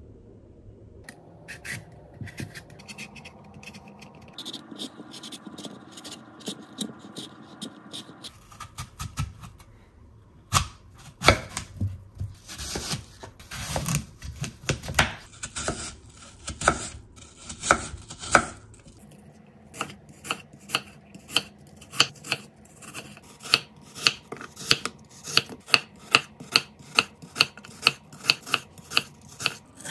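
Ceramic kitchen knife cutting a peeled apple on a wooden cutting board: crisp cuts through the apple flesh, with the blade knocking on the board. The cuts come irregularly at first, then settle in the second half into a steady dicing rhythm of about three taps a second.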